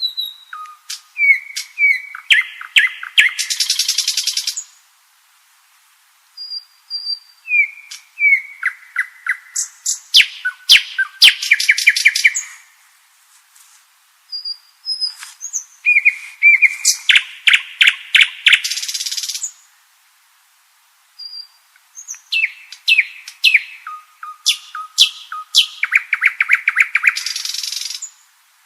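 Common nightingale singing: four song phrases separated by pauses of about two seconds, each made of short whistled notes and rapid repeated notes and ending in a fast buzzing trill.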